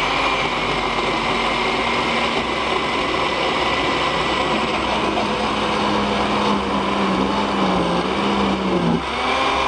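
Countertop blender running steadily, liquidizing vegetable scraps, eggshells, water and cardboard into a thick slurry. The motor's pitch slowly sinks as it works, dips briefly near the end, then picks up again.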